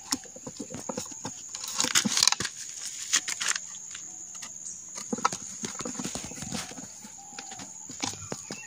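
Irregular clicks and light metal knocks from a Honda CG125 motorcycle crankcase and its gearbox shafts being handled and worked loose by hand, with a few louder knocks about two, three and five seconds in.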